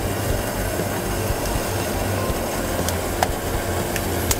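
Steady drone of running shop machinery with a low hum. A couple of light clicks near the end come from the skimmer's power cord being handled.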